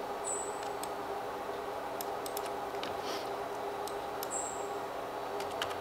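Scattered computer mouse clicks over a steady low hum.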